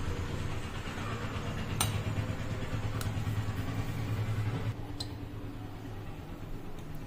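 Electric kitchen blender's motor running steadily with a low hum, then stopping about five seconds in, with a few sharp clicks.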